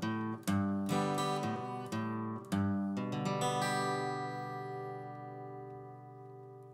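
Acoustic guitar strumming the closing chords of a song; the last chord, struck about two and a half seconds in, is left to ring and slowly fade.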